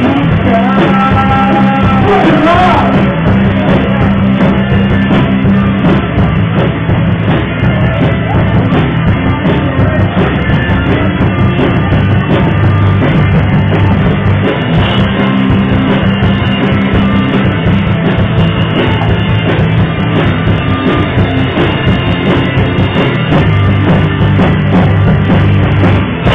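Live rock band playing loud and without a break: drum kit and electric guitar, with some singing.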